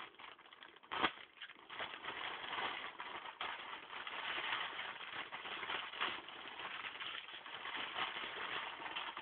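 Rustling and crinkling of packaging being handled and opened, with a sharp click about a second in.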